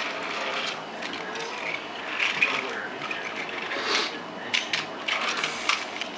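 Battery-powered Thomas & Friends toy train's small geared motor whirring steadily, with sharp plastic clicks and clacks as the trains are handled on the plastic track, most of them in the second half.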